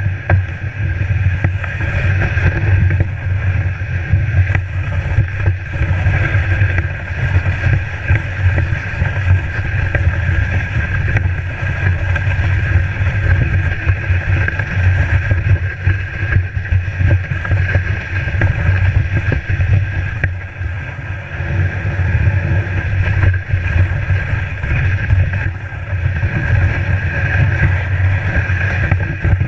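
A GT steering sled gliding over packed snow, heard from a GoPro mounted on the sled. Its runners scrape and rumble steadily, with wind on the microphone.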